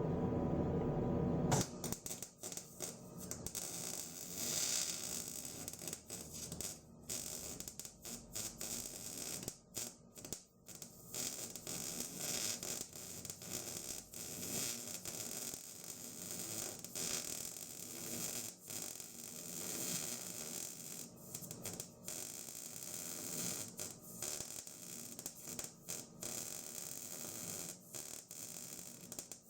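MIG welding arc crackling and sizzling in long runs, broken by short pauses as the bead is stopped and restarted. This is overhead welding on the underside of a mower frame. It is preceded by a steady hum that cuts off about a second and a half in.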